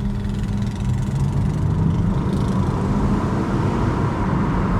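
A 2015 Chevrolet Camaro engine running steadily, getting a little louder after about a second. This is the engine with its cylinder 6 misfire cleared after the injector fault was fixed.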